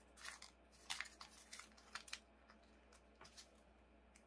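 Origami paper crinkling and rustling in the hands as a valley fold is made and creased, in several faint, short crackles.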